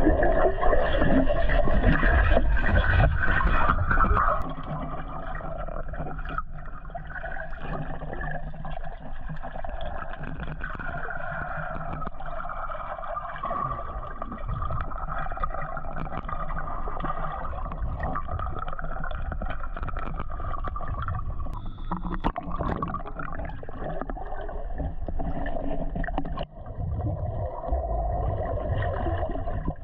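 Muffled underwater sound from a camera submerged in a swimming pool: low rumbling and gurgling water, louder for the first four seconds or so, then a steadier wash with a faint wavering hum.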